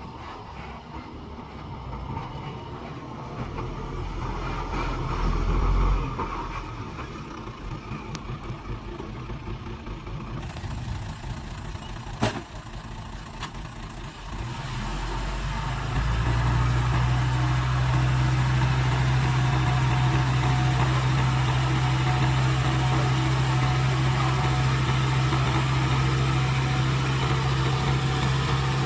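Engine of a dump truck or bulldozer running. It swells about six seconds in, gives a single sharp knock about twelve seconds in, and from about sixteen seconds in settles into a steady, loud, low drone.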